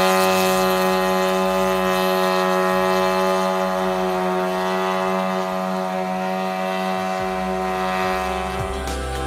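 Y25 hybrid crop-spraying drone in flight: a steady droning hum with a strong pitched whine from its rotors and onboard engine-generator, getting gradually a little quieter. Music comes in near the end.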